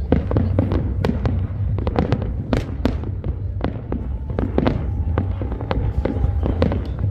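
New Year's fireworks going off in quick succession: many sharp bangs, several a second, over a steady low rumble of distant explosions.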